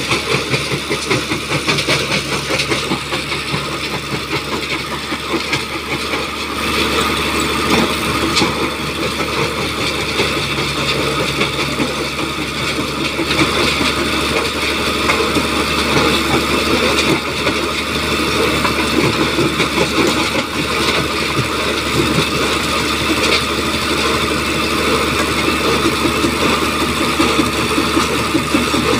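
Mobile jaw stone crusher at work: its engine running steadily, with a continuous clatter of stone being crushed and carried up the conveyor.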